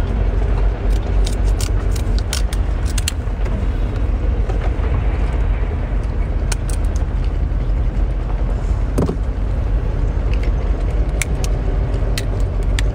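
Steady low rumble of wind buffeting the microphone, with short sharp clicks and cracks scattered through it as scissors snip through cooked king crab leg shell.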